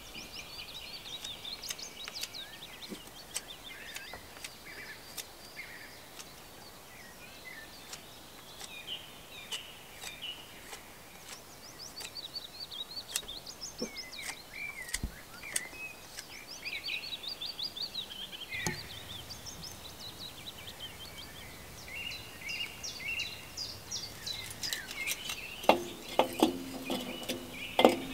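Wild birds singing and chirping throughout, over faint scraping strokes of a knife carving feather sticks from pale wood. Near the end, a few sharper knocks as split sticks are set down on a metal fire bowl.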